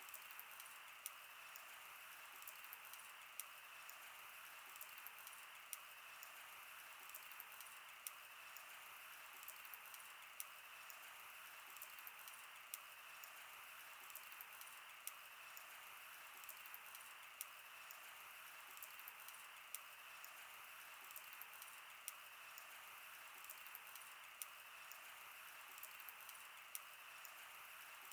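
Wood fire burning: a steady soft hiss with frequent sharp crackles and pops at irregular intervals.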